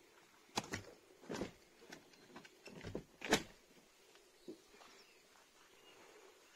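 Footsteps on a rough outdoor path: about six irregular steps in the first three and a half seconds, then quieter.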